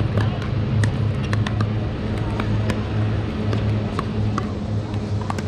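Pickleball paddles hitting plastic balls: irregular sharp pops, some close and some farther off, as play goes on across several courts at once. Under them runs a steady low hum.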